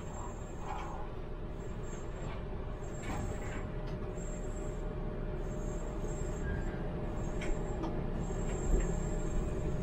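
Tram running along the track, heard from the driver's cab: a steady low rumble of wheels on rails that grows slowly louder, with a faint high whistle that comes and goes and a few light clicks.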